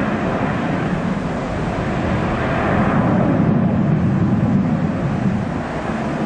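Airbus A321-200's twin jet engines at takeoff: a steady, broad rumbling noise that swells a little about three seconds in.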